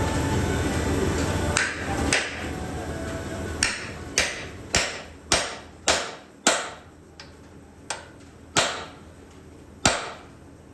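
A hammer driving a chisel against a steel frame rivet to shear off a cut rivet head: about ten sharp, ringing metal-on-metal blows at an uneven pace. A steady running noise fills the first second and a half or so before the blows begin.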